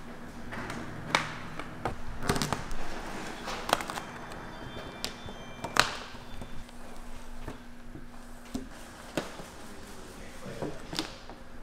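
Sheet of vinyl wrap film crackling and snapping as it is stretched and tugged over a car hood: scattered sharp crackles a second or two apart, over a faint steady hum.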